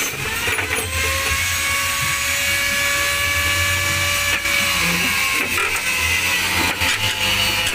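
A power tool running steadily in the workshop, its motor whining at a constant pitch.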